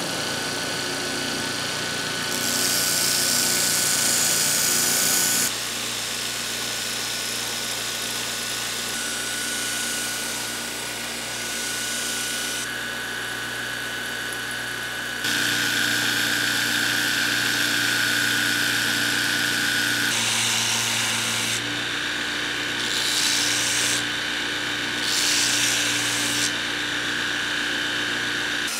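A 1975 Craftsman block bench grinder drives a Multitool 2x36-inch belt grinder attachment with an 80-grit belt, its motor running with a steady hum. Several grinding passes on metal add a loud rasping hiss over the hum, the first a few seconds in and the loudest.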